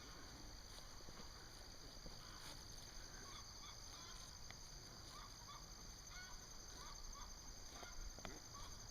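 Faint, repeated short honking calls of farm poultry, many brief calls in quick succession from about three seconds in.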